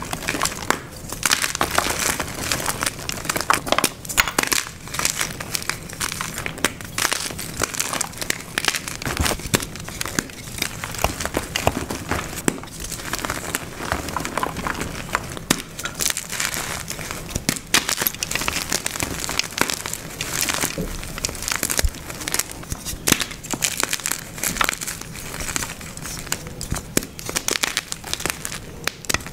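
Blocks and chunks of dyed gym chalk being crushed, a dense run of crunches and crackles.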